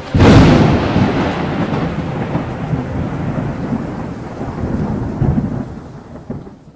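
A thunderclap: a sudden loud crack followed by a long rolling rumble that slowly dies away and fades out near the end.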